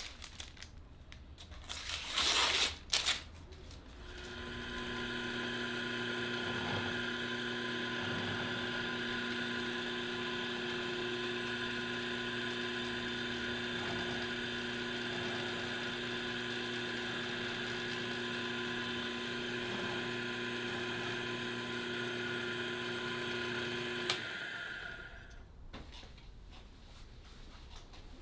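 Small electric power-tool motor running steadily at one speed for about twenty seconds, then switched off and winding down. Shortly before it starts there are two brief hissing bursts.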